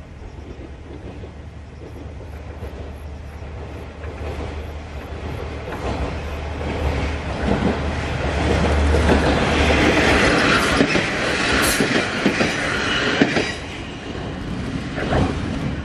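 Two-car diesel railcar train (KiHa 40 and KiHa 200) approaching and passing close by: a low diesel engine drone and wheel-on-rail rumble build to a peak about two thirds in, with wheels clicking over rail joints, then fade as it goes by.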